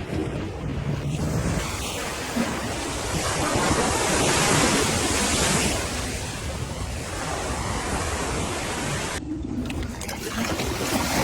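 Rushing sea and surf noise mixed with wind buffeting the microphone, swelling and ebbing, with an abrupt change in the sound about nine seconds in.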